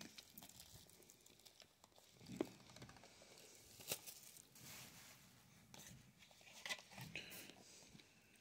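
Faint, scattered crinkling and tearing of plastic shrink wrap being pulled off a Blu-ray slipcover.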